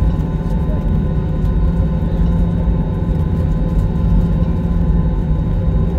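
Steady jet-airliner cabin noise during taxi: low rumble with an even hum from the engines at taxi power, heard from inside the cabin over the wing.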